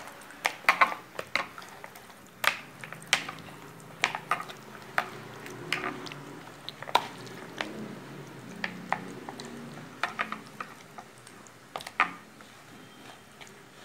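A metal spoon stirring masala-coated partridge pieces in a bowl, with irregular sharp clinks against the bowl's side and wet sounds of the paste between them.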